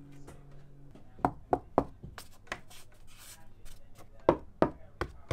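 Knuckles rapping on wooden interior panels of a boat cabin. The knocks come in quick runs of three or four, about three a second, after a quiet first second.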